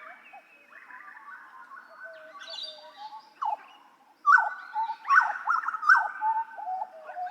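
Butcherbird (jagal Papua) singing: a string of rich whistled notes, some gliding and some held. The notes are softer at first, and a loud run starts about four seconds in.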